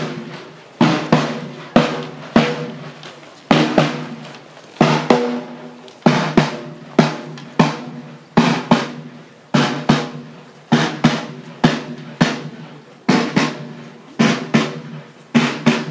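Rope-tension military field drum (snare) beating a marching cadence: a steady run of sharp strokes, each ringing briefly.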